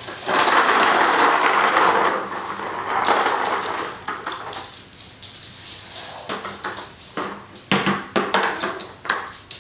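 Hard plastic toy wagon's wheels rolling and rattling across a tile and wood floor. The loudest rolling comes in the first two seconds. Near the end come several sharp knocks and clatters as the wagon is tipped up and banged about.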